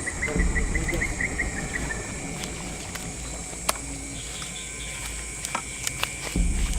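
Forest insects at dusk: a steady high buzz with a rapid run of short chirps that stops about two seconds in, over a low rumble and a few sharp clicks.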